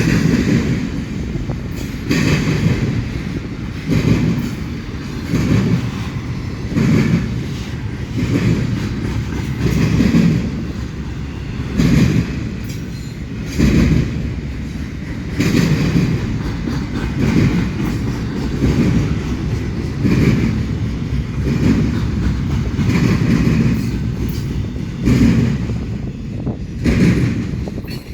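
Train cars rolling past, wheels clacking over the rail joints in a steady rhythm, with a loud clatter about every second or so over a continuous low rumble.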